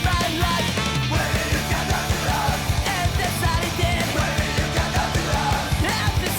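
Background rock music with a fast drum beat and a shouted or sung vocal.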